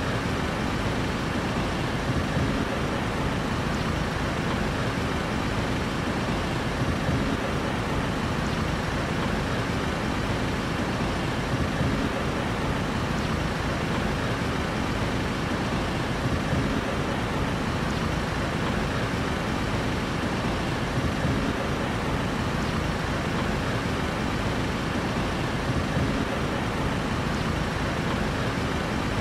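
Steady city street traffic noise: a continuous rumble of vehicle engines and road noise with no single event standing out.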